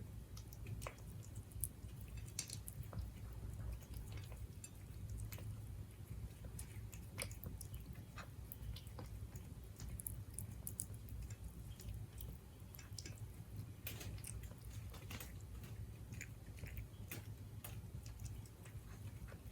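Siberian cat eating, with faint, irregular small clicks and smacks of chewing over a steady low hum.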